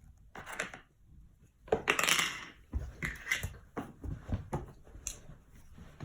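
Kinetic sand being worked with small plastic sand tools: a series of scrapes and light clattering knocks, the loudest a longer scrape about two seconds in.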